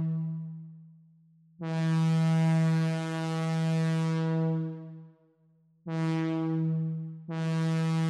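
AudioKit Synth One software synthesizer playing a single buzzy held note in imitation of a Leslie A200 single-chime locomotive horn. One blast fades out at the start, then comes a long blast, a short blast, and a long one starting near the end: the long, long, short, long pattern of a grade-crossing horn signal.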